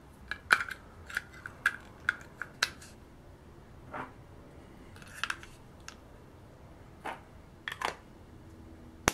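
AA batteries being pushed into the plastic battery compartment of a toy outboard motor: a string of sharp, irregular plastic clicks and knocks, thickest in the first few seconds, with a few more scattered later.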